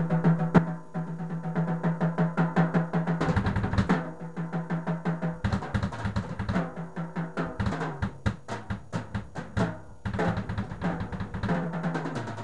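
A Ludwig drum kit played hard and fast with sticks: dense runs of snare, tom and cymbal strokes with rolls and bass drum hits. A steady low tone sounds beneath the drumming for the first few seconds and again near the end.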